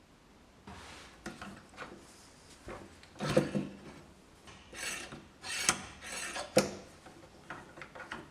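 Wood being worked by hand: a series of short rasping strokes, irregularly spaced, mixed with light knocks and clicks.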